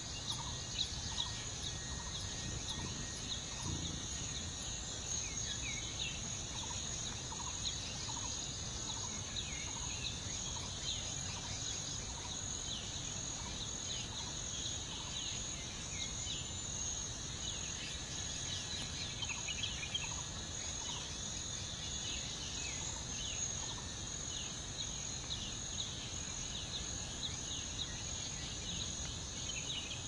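A steady, dense chorus of high-pitched chirps and trills, with a fainter, lower chirp repeating about once a second.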